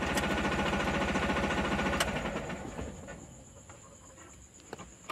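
Tata Ace Mega mini-truck's engine idling, heard inside the cab. A click comes about two seconds in, and the engine dies away over the next second. What is left is a faint high steady tone and a few small clicks.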